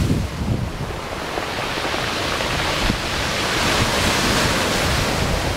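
Storm-driven surf ahead of a hurricane: choppy waves breaking and washing along the shore in a steady hiss that swells past the middle, with wind gusts buffeting the microphone in low rumbles.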